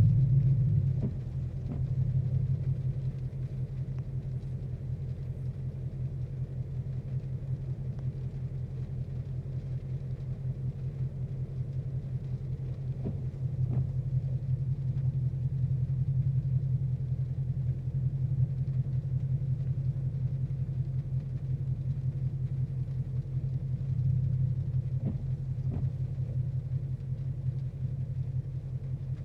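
A 2014 Mustang GT's 5.0 Coyote V8 idles with an uneven, pulsing note, swelling and settling in the first second or so. This is the rough idle the owner is chasing, where rpm periodically drops, shudders and spikes. Faint pairs of windshield wiper strokes come about every 12 seconds.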